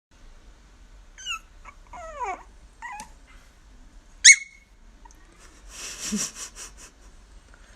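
Animal whimpering and yelping: a few short high cries that fall in pitch, the loudest a sharp yelp about four seconds in. This is followed by a quick rustling scuffle around six seconds.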